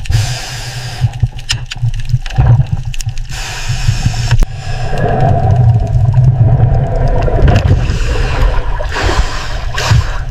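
Churning water with a heavy low rumble, and bursts of gurgling, hissing bubbles three times, the longest near the end.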